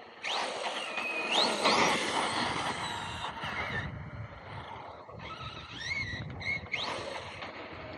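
Electric RC monster truck being driven: its motor whine rises and falls in pitch with the throttle, over a steady rushing noise.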